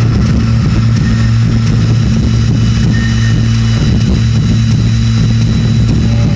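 Minimal electronic music played loud over a venue sound system: a steady heavy bass drone with a few faint high tones above it.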